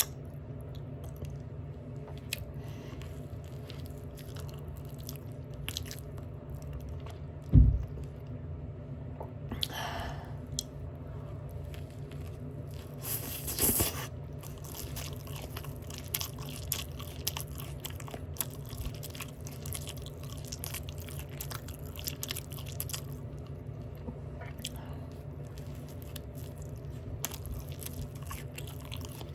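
Close-up open-mouth chewing of a Big Mac burger, with many small wet clicks and smacks. There is one loud low thump about seven and a half seconds in, and a couple of louder noisy bursts around ten and fourteen seconds in.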